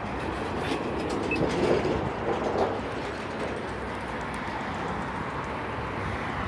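Cars passing on a busy road. One vehicle goes by louder, swelling and fading in the first few seconds, then there is steady road noise.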